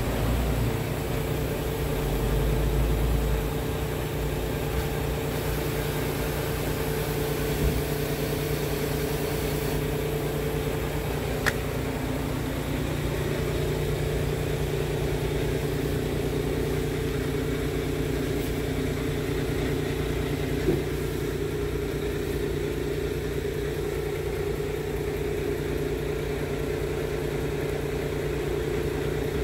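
Scania R truck's diesel engine idling steadily, with a couple of brief clicks over it.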